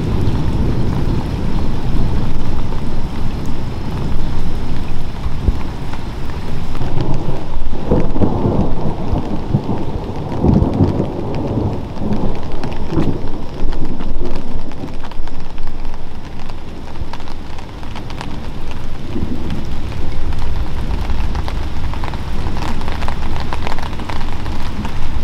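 Steady rain falling, with thunder rumbling in irregular surges, the heaviest rolls about a third to halfway through.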